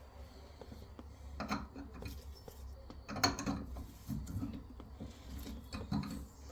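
Hand tools working on pipe fittings under a sink: a few separate metallic knocks and clicks, with scraping and rubbing between them.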